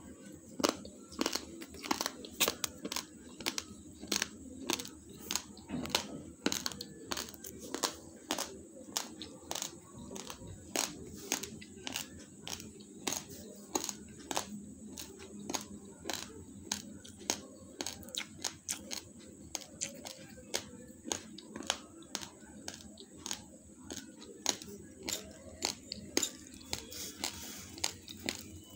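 Uncooked basmati rice being crunched between the teeth: a continuous run of sharp, irregular crunches, a few each second.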